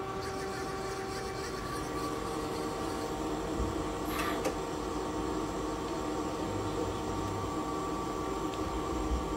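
Doosan Lynx 220LSYA CNC lathe running, its sub-spindle turning under C-axis control: a steady machine hum with several steady whining tones.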